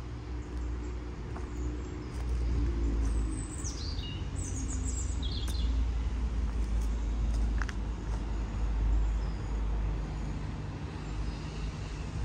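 Street ambience: a steady low rumble of road traffic, with a few bird chirps sliding down in pitch about four to six seconds in.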